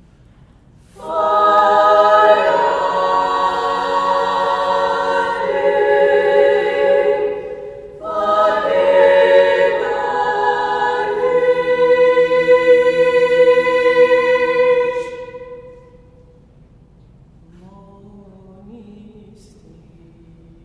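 Choir singing long held chords in several parts. It enters about a second in, breaks briefly near the middle, comes back in, and fades out about three-quarters of the way through.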